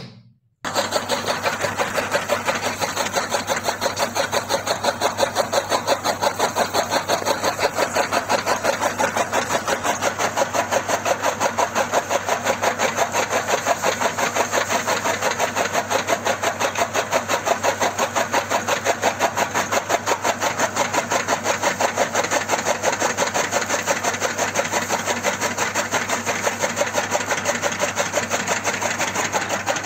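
Small electric motor of a miniature home-made chaff cutter switched on and running steadily, belt-driving its flywheel and cutter, with a fast, regular pulsing as green stalks are fed in and chopped. It starts about half a second in.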